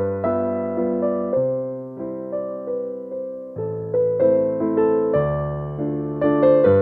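Background piano music: a slow melody over low chords, each note struck and dying away.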